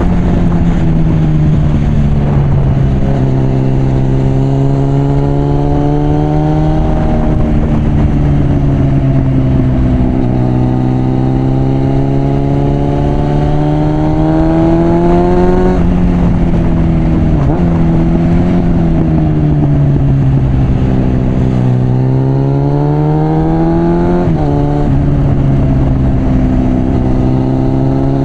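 Suzuki GSF 650 Bandit's inline-four engine, through a loud aftermarket Mivv exhaust, being ridden: the engine note climbs and falls with the throttle, with sudden drops in pitch at gear changes about halfway through and again near the end.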